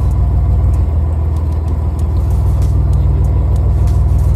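A fishing boat's engine running steadily with a low, even drone.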